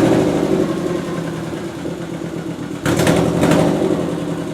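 Subaru Outback's flat-four engine running just after a start, settling from a fast idle, then blipped about three seconds in and falling back. It is running with a bad exhaust leak: the homemade gasket at the exhaust manifold has blown out.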